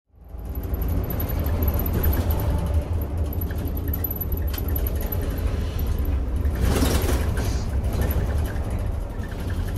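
Inside a city bus while it drives: a steady low engine and road rumble, with a short burst of hiss about seven seconds in.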